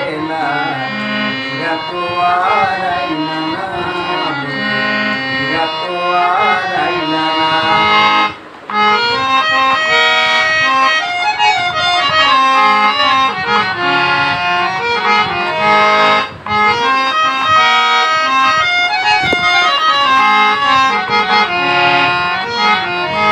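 Harmonium played with both hands, a reed-organ melody with chords. A man's voice sings over it in the first several seconds. The playing breaks off briefly twice, at about eight and sixteen seconds in.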